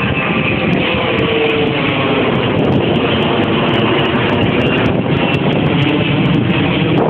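Loud, steady wind noise buffeting a phone's microphone carried on a moving bicycle.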